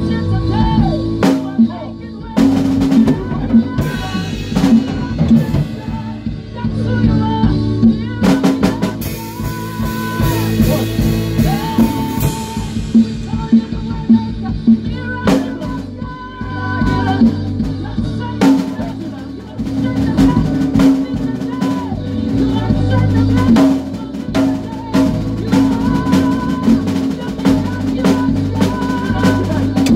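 Live band playing an instrumental passage: drum kit with kick, snare and cymbals over electric bass and a held melodic line. A cymbal crash about eight seconds in rings for several seconds.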